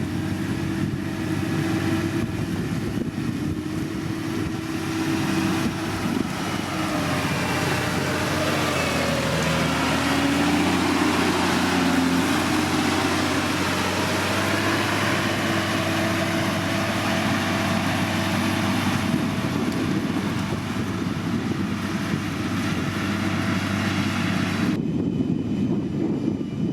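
Diesel engine of heavy road-construction machinery running steadily under load, its pitch rising and falling for a few seconds in the middle. Near the end the higher-pitched part of the noise cuts off suddenly, leaving a low drone.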